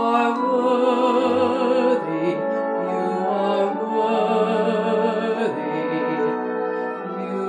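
A woman singing a slow sacred solo with a wide vibrato on long held notes, over instrumental accompaniment.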